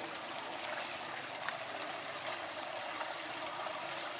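Steady running water, an even trickling hiss with no break.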